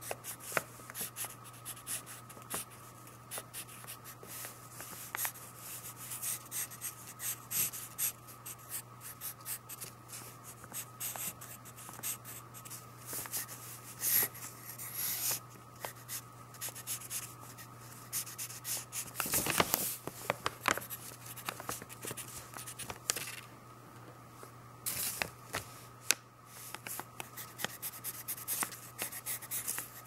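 Pencil sketching on sketchbook paper: an irregular run of quick, scratchy graphite strokes, short and long, with a louder, longer scrape about two-thirds of the way in. A faint steady hum lies underneath.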